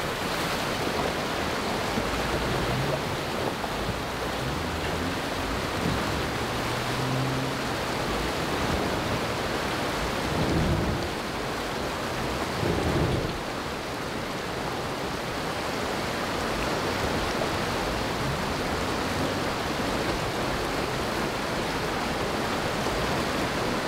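Steady rushing of a rocky mountain creek, with a Jeep Wrangler's engine running low underneath as it drives through the water, and two brief louder surges about ten and thirteen seconds in.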